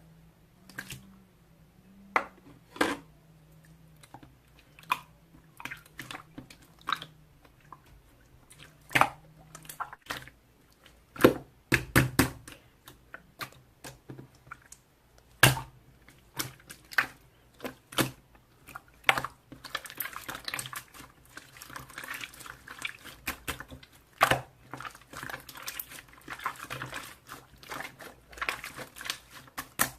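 Irregular sharp clicks and taps, widely spaced at first, then a quicker, denser patter of small clicks for the last third. A faint low hum stops about ten seconds in.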